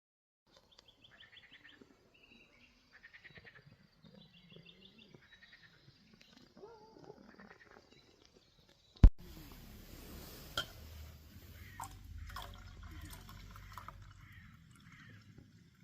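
Songbirds singing faint, repeated trilled phrases. About nine seconds in, one sharp loud click, after which a low rumble and hiss set in under further bird calls and a second, smaller click.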